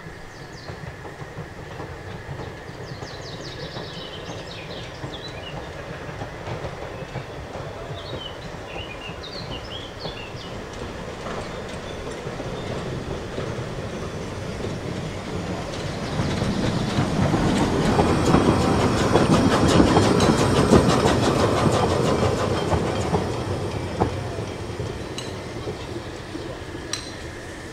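A 750 mm narrow-gauge steam train approaching and passing, growing louder to a peak about two-thirds of the way through with rapid rhythmic clatter, then fading away. Birds chirp in the first half.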